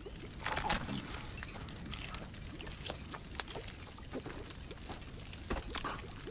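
Campfire crackling: irregular sharp snaps and pops of burning wood over a steady low hiss.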